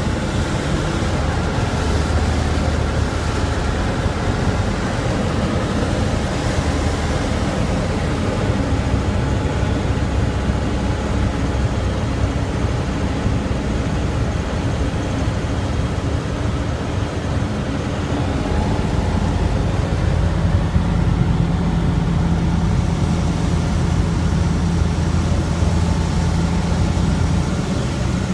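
Flight Design CTSW microlight's Rotax 912 engine and propeller droning steadily, heard from inside the cockpit with airflow noise, at low approach power; the engine note shifts about two-thirds of the way in.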